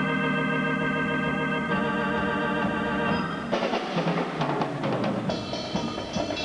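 Live band playing an instrumental passage: held organ-like keyboard chords, moving to a new chord about halfway through with a run of drum hits, then holding again near the end.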